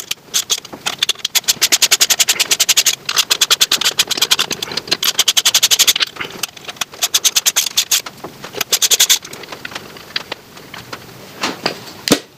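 Socket ratchet clicking rapidly in long runs as it backs out the starter housing bolts on a Victa Powertorque mower engine, then a few scattered clicks and knocks near the end.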